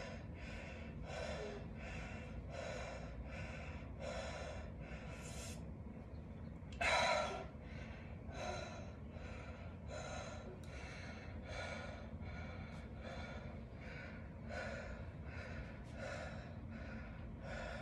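A man breathing hard and fast in a steady rhythm from exertion during a dumbbell grip hold, about three breaths every two seconds. One longer, louder exhale comes about seven seconds in.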